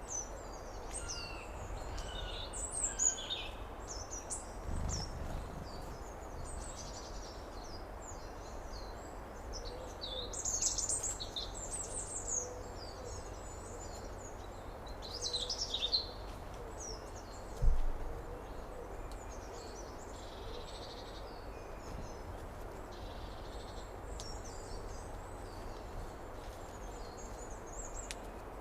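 Summer outdoor ambience of many birds chirping and singing over a steady low rumble. Two dull low thumps, the louder one about eighteen seconds in.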